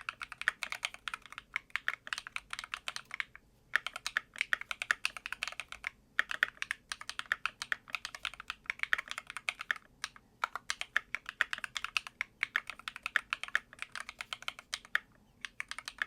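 MCHOSE ACE60 magnetic-switch keyboard being typed on, a dense run of keystroke clacks with a few brief pauses, heard from about head height. The switches sound fairly well lubricated, though not perfectly, in the reviewer's judgement.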